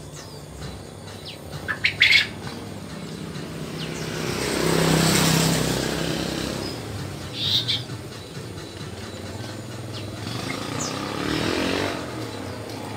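Asian brown flycatcher giving short, sharp high chirps, loudest in a quick cluster about 2 s in and again about 7.5 s in. Under them a motor's rumble swells and fades in the middle and again near the end.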